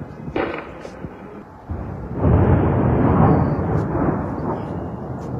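An explosion booming in the distance, its low rolling rumble swelling and fading over about two to three seconds, with a shorter sharp sound about half a second in.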